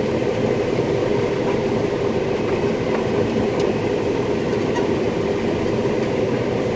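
Combine harvester running steadily while harvesting corn, heard from inside the cab: an even drone of engine and threshing machinery with a steady hum.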